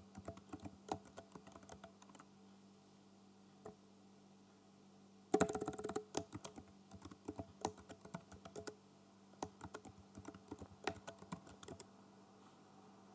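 Computer keyboard keys clicking as a password is typed at a prompt, in short runs of keystrokes with pauses between, the loudest, densest flurry about five seconds in.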